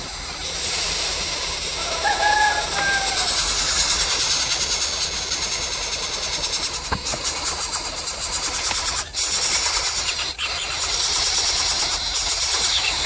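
Steady, loud high-pitched buzzing of insects, with a short bird call about two seconds in.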